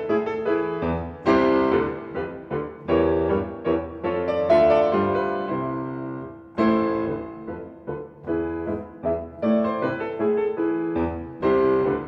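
Piano music: notes and chords struck and left to fade, over low bass notes.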